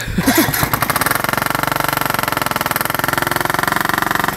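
Ride-on lawn mower's engine running steadily with a fast, even pulse, coming in suddenly at the start.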